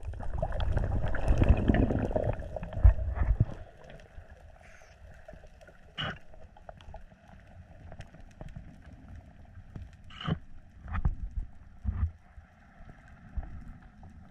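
Underwater water noise heard through a camera's housing: a loud, low gurgling for the first three or so seconds, then a quieter background with a few sharp clicks.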